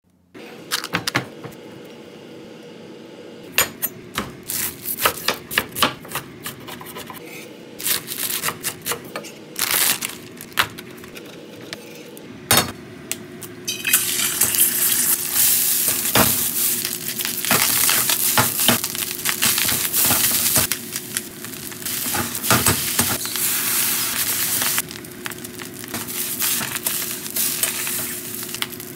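Fried rice being stir-fried in a skillet: a spatula repeatedly knocks and scrapes against the pan. About halfway through, a loud, steady sizzling sets in and eases off a few seconds before the end.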